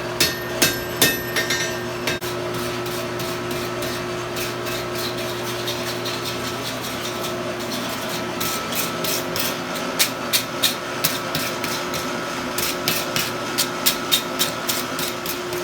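Hammer blows on a hot Damascus steel billet on the anvil: a few strikes at the start, then a long run of quick, uneven blows in the second half. Under them runs the steady hum of the coke forge's blower.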